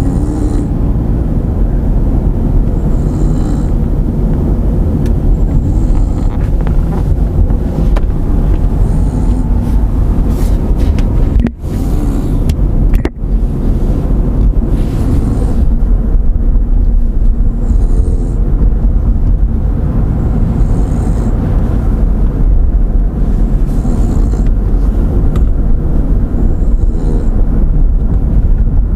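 A person snoring while asleep, a breath roughly every three seconds, over a loud, steady low rumble.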